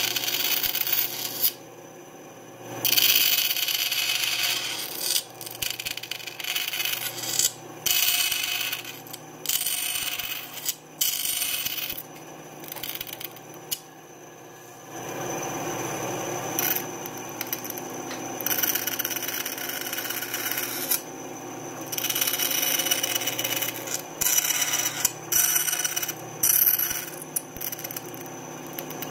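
Small benchtop bandsaw cutting thin lite plywood, the blade hissing through the wood in short, irregular bursts with quieter stretches between cuts.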